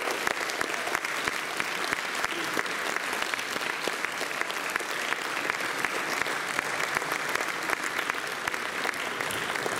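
Audience applauding steadily: many hands clapping at the end of a performance.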